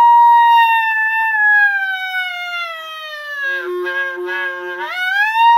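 Clarinet holding a high C, then bending it slowly down about a minor seventh using only the mouth, shaping the inside of the mouth like the English "ear" vowel. The note turns rough and unsteady at its lowest point, then slides back up to the starting pitch and holds there.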